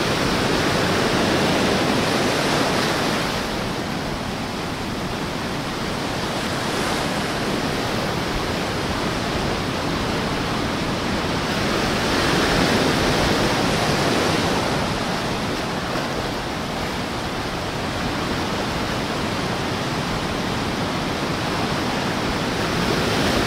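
Small ocean waves lapping up the sand and between rocks at the water's edge: a steady wash of surf that swells as waves run in, near the start, about halfway through and again at the end.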